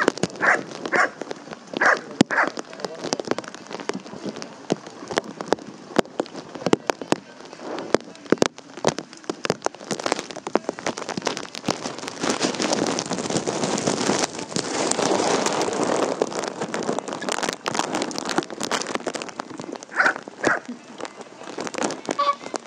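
Rain pattering close to the microphone, a dense scatter of ticks that grows thicker and louder through the middle stretch.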